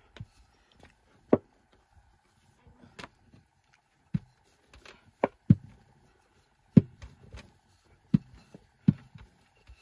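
Wooden rolling pin knocking against a wooden board while flatbread dough is rolled out: sharp, short knocks at uneven intervals, about one a second.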